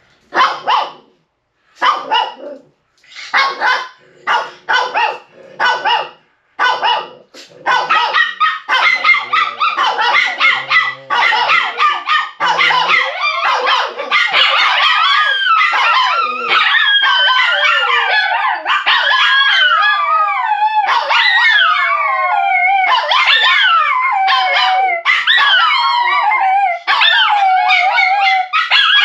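Shih Tzu puppies barking in short separate yaps, then from about eight seconds in breaking into continuous overlapping howls, long wavering cries that slide down in pitch. It is the howling they do each time they are left alone.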